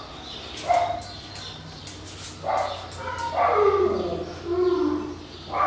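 A dog barking in short bursts, with a longer call that falls in pitch about three and a half seconds in.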